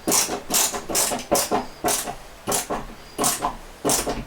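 A screwdriver tightening the mounting through-bolt of a door lever set, with a short rasping click at each twist, repeated about every half second.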